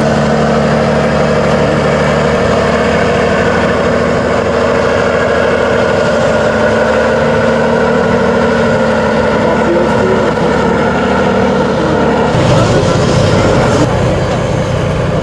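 Tatra 813 8x8 trial truck's diesel engine running steadily under load as the truck crawls up a steep slope. About 12 seconds in its note changes, turning deeper and rougher.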